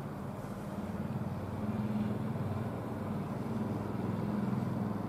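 Diesel engine of a JNR DE10 diesel-hydraulic locomotive running as the locomotive moves slowly, a steady low drone that grows slightly louder about two seconds in.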